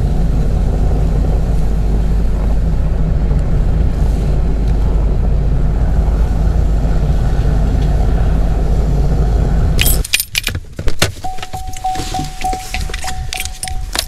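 Chevrolet Silverado pickup carrying a slide-in camper backing slowly along a snow-packed trail: a steady low rumble of engine and tyres for about ten seconds, then it stops abruptly. After that come jangling keys and clicks, with a steady high beep from about a second later.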